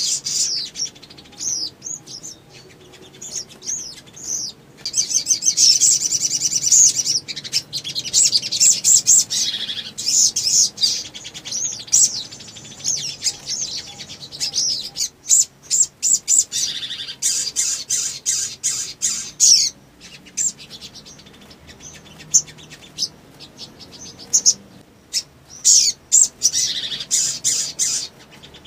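Caged male sunbird singing in long runs of rapid, high-pitched twittering trills, broken by short pauses.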